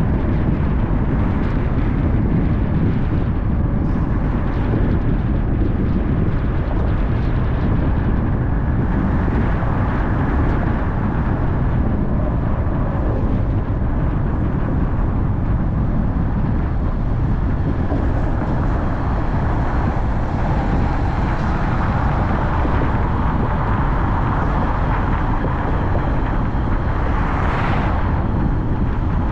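Car driving steadily, a continuous rumble of road and tyre noise with engine hum, with a brief louder swoosh near the end.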